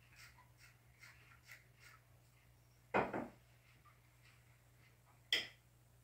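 A faint steady low hum with scattered soft clicks, and two sharper knocks, about three seconds in and again near the end.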